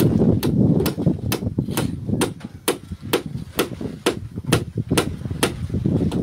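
Steady hammer blows at an even pace of about two a second, each a sharp crack, over a low rumbling background.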